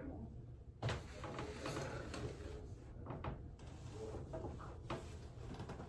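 A few scattered sharp knocks and clicks, the loudest about a second in, over steady low room noise.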